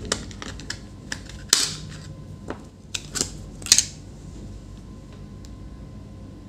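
Plastic snap-fit case of a 2.5-inch SATA SSD clicking and cracking as it is pried open along its seam: a string of sharp snaps over the first four seconds, the loudest just before the lid comes free, then only light handling.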